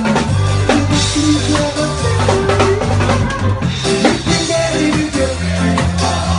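Live reggae band playing, with the drum kit to the fore over a steady, moving bass line.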